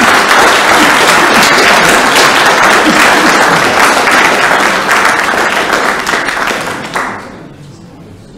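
Audience applauding at the end of a talk: loud, steady clapping that dies away about seven seconds in.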